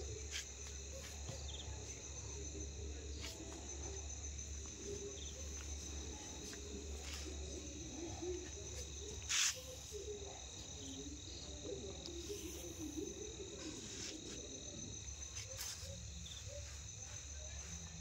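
Crickets chirring in a steady, high, unbroken drone over a low hum, with a few faint clicks and one short sharp noise about nine seconds in.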